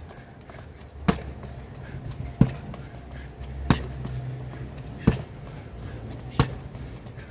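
Strikes landing on a hanging heavy punching bag: five sharp thuds, about one every second and a third, over a low steady hum.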